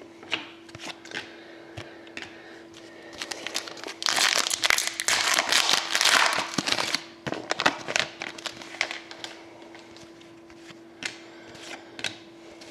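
A trading card pack wrapper being torn open and crinkled by hand, loudest for about three seconds in the middle. Scattered light clicks and rustles from cards being handled come before and after.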